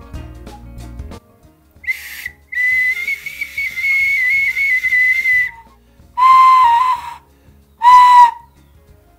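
Small fired-clay ocarina whistles being blown, with breath noise. A tiny whistle gives a short high toot and then a long high note of about three seconds that wavers slightly. A larger round whistle then gives two shorter notes about an octave lower.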